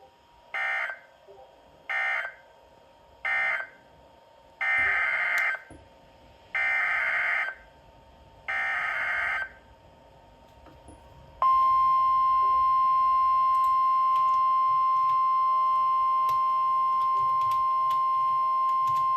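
Emergency Alert System SAME data bursts: three short end-of-message bursts close the previous warning, then three longer header bursts announce the next one. About eleven seconds in, a loud steady single-pitch warning alarm tone of the kind NOAA Weather Radio sends before a warning starts and holds.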